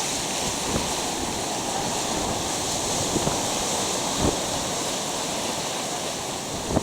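Surf breaking on a Gulf of Mexico beach: a steady rush of waves. A few short knocks stand out over it.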